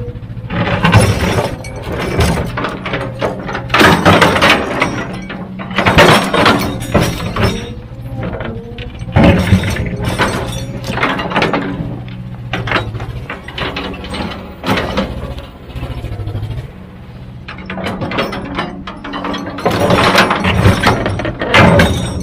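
Heavy diesel earthmoving machine running steadily under load, with repeated loud clattering crashes of rock being scooped or dumped, about one every two seconds.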